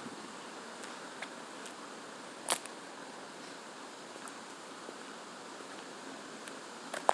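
Steady outdoor background hiss with a few short, sharp clicks, the loudest about two and a half seconds in.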